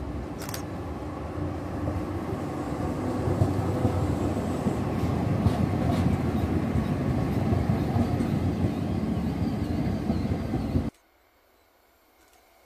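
Yellow-and-red light-rail tram passing close on street track: a steady running noise of wheels and motors that grows louder a second or two in, then cuts off abruptly near the end.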